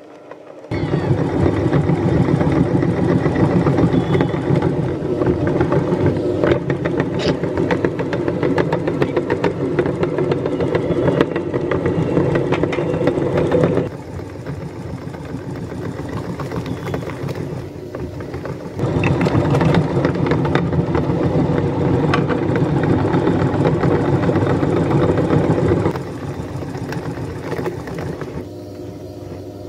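Motor-driven meat grinder running, its auger crushing and extruding bars of soap through the cutting plate with a dense, steady mechanical grinding. The noise starts abruptly, drops to a quieter run for a few seconds about halfway, comes back at full strength and eases off again near the end.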